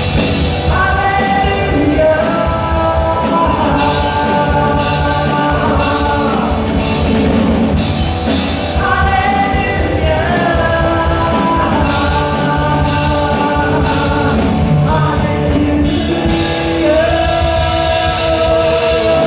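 Live worship band playing a rock-style song: drum kit, electric bass, electric and acoustic guitars and keyboard, with singers holding long sung phrases.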